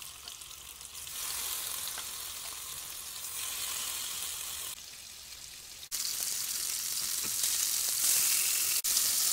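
Marinated kingfish steaks sizzling as they shallow-fry in hot oil in a nonstick frying pan. The steady hiss gets louder about a second in and again about six seconds in, with a short dip between and a brief break near the end.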